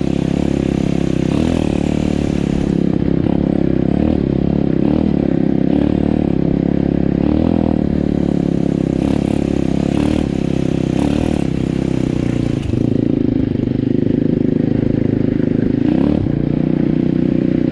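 Pit bike's single-cylinder four-stroke engine running under way on a dirt track, a steady motorcycle engine note. The sound dips briefly about three-quarters of the way through, then picks up again.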